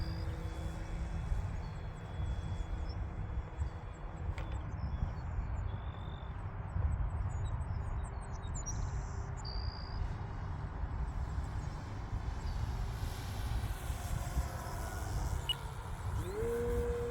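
Wind rumbling on the microphone, with the model airplane's motor faintly heard overhead. The motor's pitch rises and holds near the end as it throttles up.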